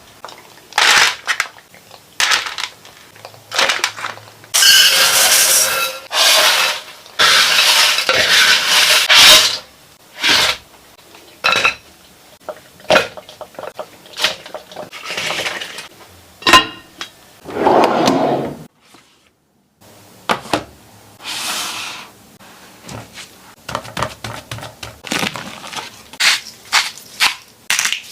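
Kitchen handling sounds: sharp clinks and knocks of dishes and utensils, broken by several loud noisy stretches of a second or two of crackling or crunching, and a sudden gap of about a second in the middle.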